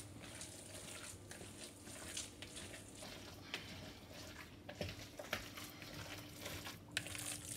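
Faint wet squishing of a Saumagen filling (potatoes, eggs, meat and soaked bread) being mixed by hand in a bowl, with a faint steady hum behind it.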